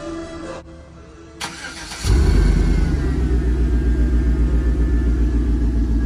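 Chevy Silverado V8 starting about two seconds in and settling straight into a loud, steady, deep idle through a Flowmaster FlowFX muffler, with the catalytic converters removed.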